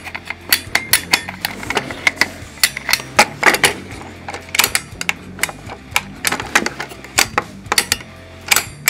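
Irregular sharp clicks and taps, two or three a second, from the metal winding bracket and plastic body of a 1960 Lionel #3429 helicopter launch car being worked by hand.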